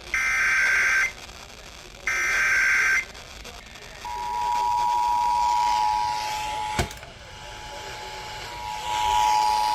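Emergency Alert System monthly test: two one-second bursts of the SAME header's digital data tones, a second apart, then about four seconds in the steady two-tone EAS attention signal (853 and 960 Hz) begins and holds. A sharp click nearly seven seconds in.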